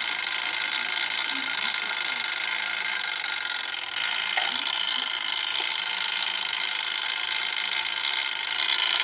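Spring-driven clockwork of an 1890s Gamewell fire alarm telegraph box whirring steadily as it runs after the box has been pulled, with a brief dip about four seconds in.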